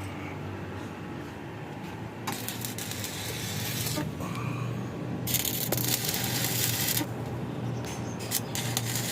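Electric arc welding on a steel pipe frame: three runs of crackling hiss, each a second or two long and starting and stopping sharply, over a steady low hum.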